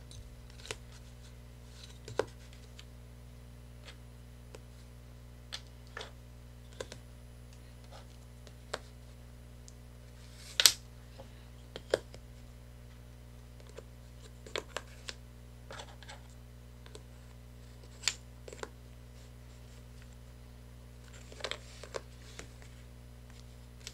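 Light, irregular clicks and taps of tangram pieces being picked up and set down on a board, about a dozen in all, over a faint steady low hum.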